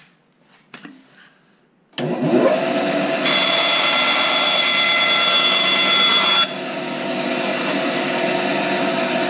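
Benchtop bandsaw switched on about two seconds in and running steadily. From about three seconds in, its blade cuts through a thin sheet of wood, adding a high-pitched whine that stops at about six and a half seconds. The saw then runs on free.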